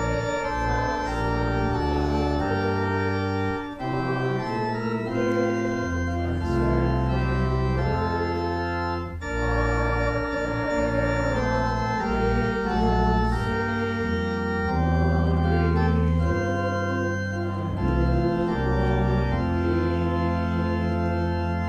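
Church organ playing sustained chords that change every second or two over a deep held bass.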